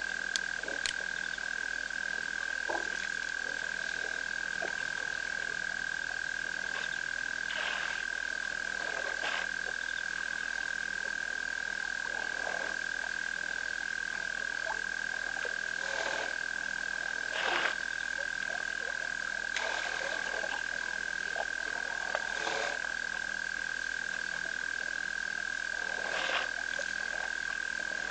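Frog chorus: a steady high-pitched drone, with louder single croaks breaking in every few seconds.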